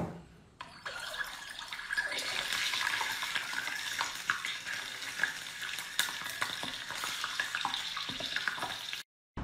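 Scorpions deep-frying in hot oil: a steady sizzle with many small crackles and pops. It cuts off suddenly near the end.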